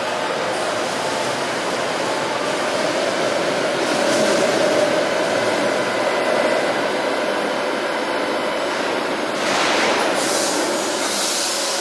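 Guadalajara light rail train moving through an underground station, a steady rolling rumble with a faint running tone under it. Near the end a loud burst of hiss rises over it.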